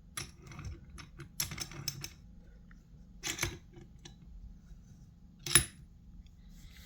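Small metal clicks and taps as lock picks and a tension tool are handled and worked in a small Master padlock: several quick clicks in the first two seconds, another pair a little past three seconds, and one sharp, louder click about five and a half seconds in.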